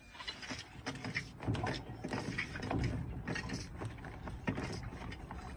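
Garden hose and its metal fittings being handled at a truck-mounted hose reel: irregular knocks, clatters and rubbing.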